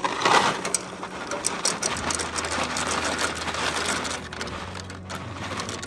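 Dry pasta pouring out of a cardboard box, rattling in the box and pattering into a pot of boiling water in a rapid run of small clicks.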